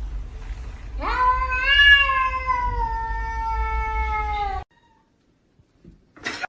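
A cat's long, drawn-out yowl, the caterwaul of an angry cat. It rises at the start, is held, and sinks slowly in pitch for about three and a half seconds before cutting off abruptly.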